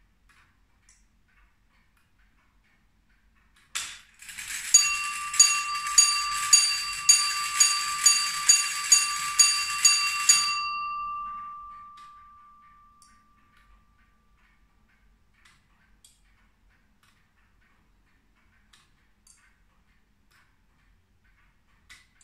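Bell of a wooden foliot clock with verge escapement striking the hour: a click about four seconds in, then about a dozen quick strokes, about two a second, that ring on and fade out a few seconds after the last. Faint ticking of the escapement is heard before and after the striking.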